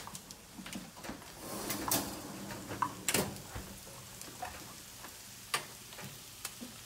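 A few scattered light clicks and knocks from a foil-lined baking tray being set down and settled on the cast-iron grates of a gas stove, the clearest about two and three seconds in, over a faint steady hiss.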